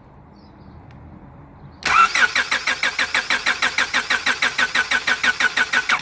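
A car engine is cranked over by its starter motor for about four seconds, starting about two seconds in, with an even rhythm of about six compression pulses a second. It stops suddenly without the engine firing. This is a cranking vacuum test that the mechanic reads as showing good compression.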